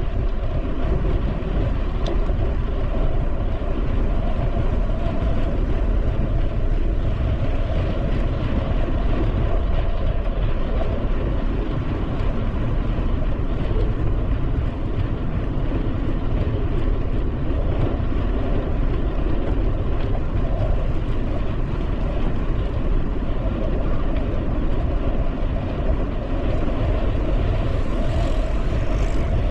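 Steady wind rush on the microphone and the rolling noise of a bicycle in motion, as heard from a camera carried on the moving bike; mostly a heavy low rumble with no pauses.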